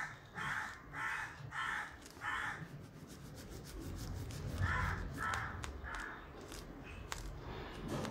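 Crow cawing in a series: about six harsh caws in quick succession, then three more a couple of seconds later, with faint scratchy strokes of a crayon on paper beneath.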